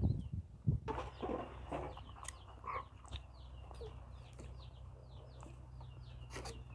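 Chickens peeping: a run of short, high, falling calls, about three a second, starting a second or so in and carrying on steadily.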